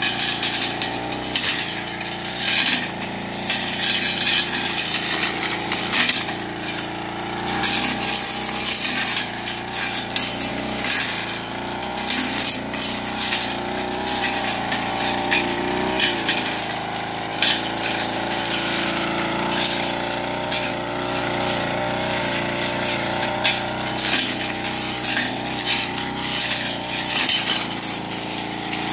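A 30cc backpack brush cutter runs at high speed while cutting dense weeds, its engine note wavering as the cutting head loads up in the growth. Many sharp clicks and ticks come from the cutting head striking woody stems and flinging debris.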